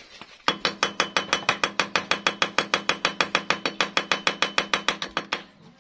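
Ratchet wrench on a long extension clicking rapidly and evenly, about nine clicks a second, while working a bolt at a Honda RSX motorbike's new carburetor. The clicking starts about half a second in and stops shortly before the end.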